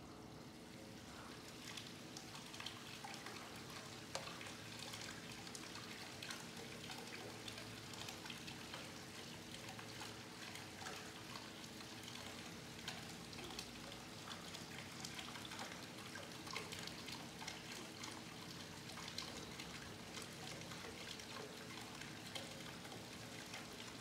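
Weeping water wall running: a thin sheet of water trickling down the stone-clad wall and spattering into the pool at its foot, a steady faint patter of drops. A steady hum lies underneath.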